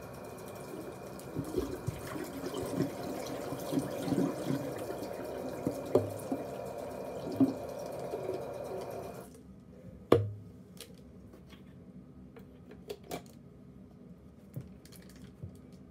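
Tap running water into a small bottle, shut off suddenly about nine seconds in. A single sharp knock follows about a second later, then a few light clicks.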